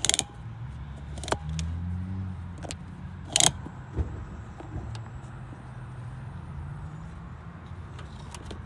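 A low engine hum whose pitch drifts up and down, with a few sharp clicks and knocks from handling over it, the loudest near the start and about three and a half seconds in.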